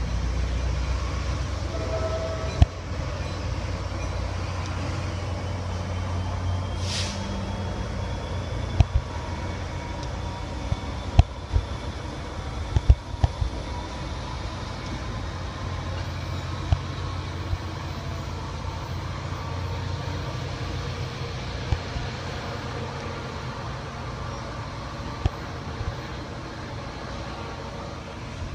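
Metro-North GP40FH diesel locomotive pulling a short commuter train away from the station: a steady low diesel rumble that slowly fades as the train recedes. Sharp wheel clicks over the track come mostly between about nine and thirteen seconds in, with a brief hiss around seven seconds.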